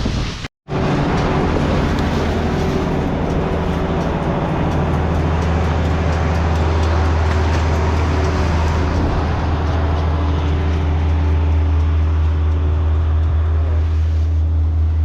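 A motor running steadily with a loud, low, even drone, which grows fuller about four seconds in.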